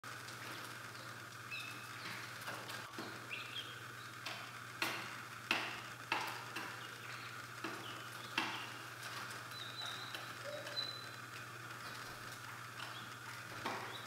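Young game-bird chicks in a brooder (guinea fowl keets, pheasant and prairie chicken chicks) giving scattered short high peeps, with sharp taps in between, over a low steady hum.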